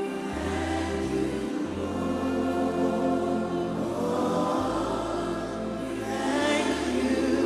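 Gospel worship music: many voices singing together over an instrumental accompaniment with long held bass notes that change every second or two.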